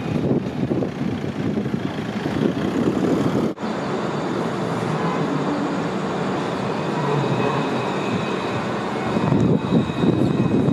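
Alstom Citadis light-rail trams running on street track, a steady rumble with faint steady tones above it. It breaks off suddenly about three and a half seconds in and picks up again as another tram approaches along the platform.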